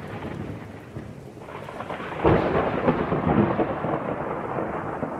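Thunderstorm: rain falling with thunder rumbling, and a loud thunderclap breaking about two seconds in and rolling on.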